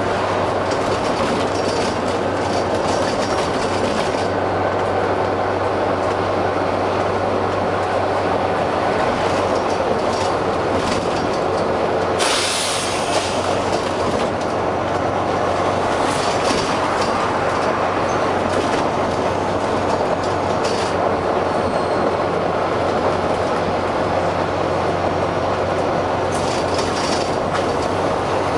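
Volvo B9TL double-decker bus's diesel engine thrashing under way, with a steady low hum and mechanical noise. A short burst of air hiss about twelve seconds in is typical of the bus's air system, and fainter hisses come later.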